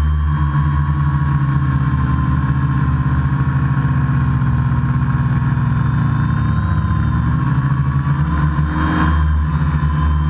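Electric motors and propellers of a multirotor drone, heard from the camera it carries: a loud, steady buzzing hum whose pitch wavers briefly a little past the middle.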